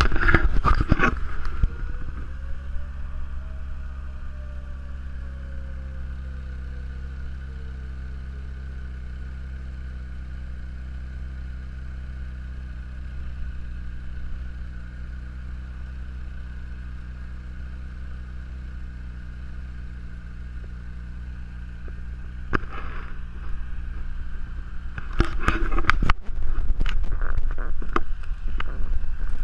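Steady low engine hum, as of a vehicle running, with wind buffeting the microphone in the first two seconds and again from about 22 seconds in. A faint tone slowly rises and falls between about two and nine seconds in.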